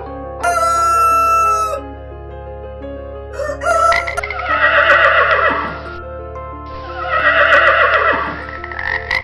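A rooster crowing twice, each crow about two seconds long, over steady background music. A shorter high-pitched sound comes about half a second in.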